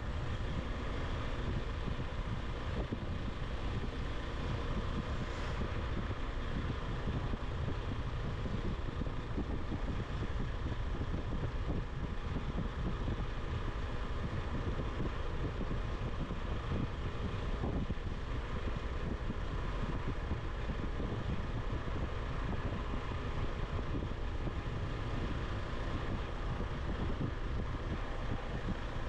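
Motorcycle engine running steadily on the move, mixed with wind rushing over the microphone.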